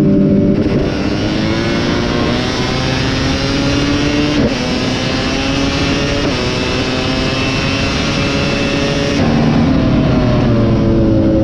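KTM 250 SX two-stroke motocross engine under hard throttle, its pitch climbing and then dropping sharply at gear changes about four and a half and six seconds in. Near the end the revs fall away as it slows.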